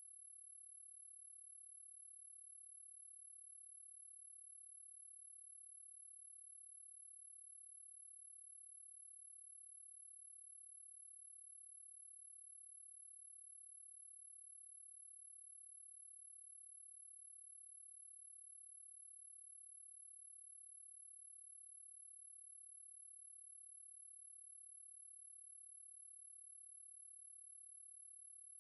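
A steady, high-pitched 11043 Hz sine-wave test tone: one pure, unchanging whistle-like pitch, used for speaker testing and speaker cleaning.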